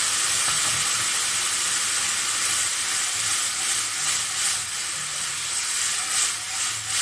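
Tamarind water sizzling in a hot kadai, poured over sautéed ginger and green chillies, as a steady hiss. From about four seconds in, a wooden spoon stirs it and the sizzle grows uneven.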